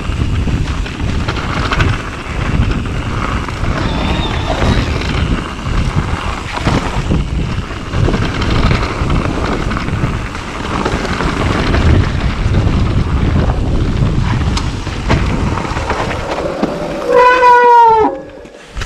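Mountain bike rolling fast down a dirt singletrack: steady tyre rumble, rattling of the bike and wind noise on the handlebar-mounted microphone. About three seconds before the end a loud squeal falls in pitch as the bike brakes to a stop, and the noise drops away.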